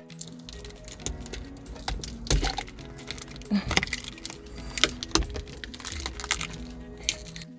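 Background music with a steady melody, over a string of sharp plastic clicks and knocks from hands and tools working on a car's overhead moonroof console.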